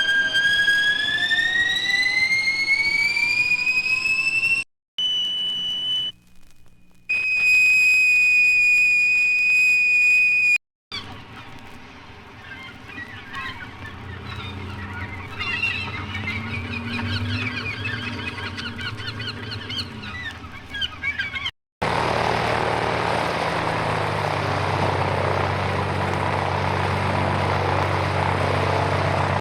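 A ship's siren winding up in pitch, then a bosun's whistle holding one high steady note for a few seconds. Sea gulls call over a noisy background for about ten seconds, and from about two-thirds of the way through a small plane's engine runs with a steady drone.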